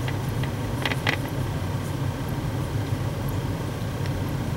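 A steady low mechanical hum, like a room fan or air conditioner running, with a few light clicks about a second in as a paintbrush mixes paint in a plastic palette.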